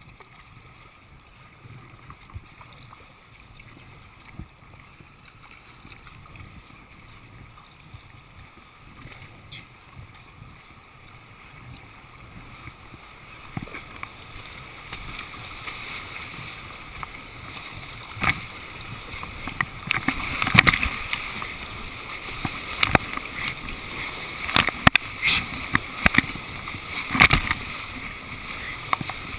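Rushing river water around a whitewater kayak. It grows louder about halfway through as the boat enters a Class II rapid, with many sharp splashes from paddle strokes and waves breaking over the boat.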